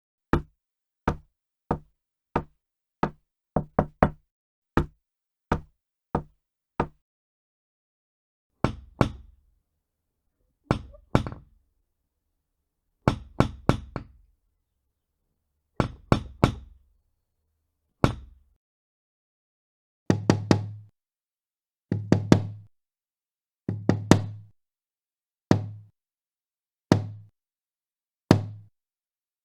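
Knocking on doors in a series of separate recordings. First comes a run of single sharp knocks about every two-thirds of a second. After a pause come heavier knocks in twos and threes. Near the end a deeper, booming door is knocked in quick clusters.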